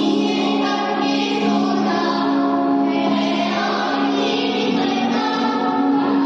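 A group of children singing a song together in chorus, the voices holding long notes in a steady, unbroken melody.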